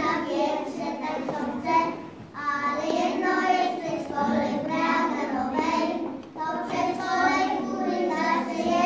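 A group of young children singing together in unison, in phrases broken by two short pauses for breath.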